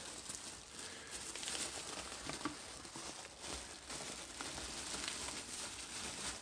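Clear plastic bag crinkling and rustling in irregular bursts as a hand rummages inside it.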